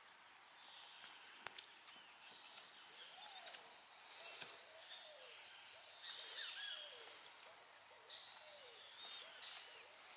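Outdoor tropical ambience: a steady, high-pitched insect drone, with short arching animal calls repeating one or two times a second, and one faint click about a second and a half in.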